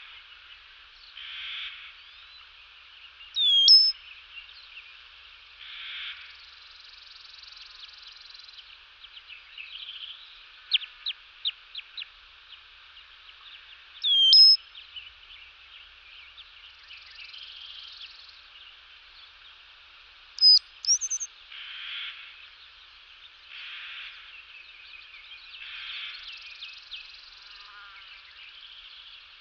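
Bird calls and chirps over a steady background chorus, with loud sweeping whistled calls about 4, 14 and 21 seconds in and a quick run of short chirps around 10 to 12 seconds.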